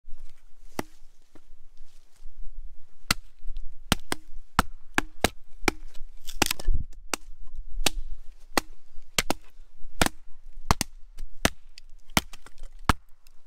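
Small hatchet chopping and splitting firewood on a tree-stump chopping block: a long series of sharp, woody chops at uneven spacing, roughly one to two a second, with one longer, louder crunch about halfway through.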